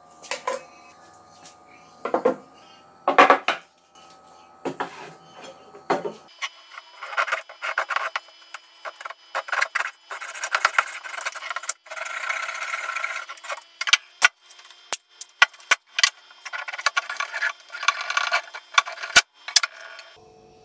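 A thin plastic bucket being cut with a knife and torn off a hardened plaster cylinder. First come a handful of separate scraping strokes, then dense crackling and rasping with many sharp snaps as the plastic splits and peels away from the plaster.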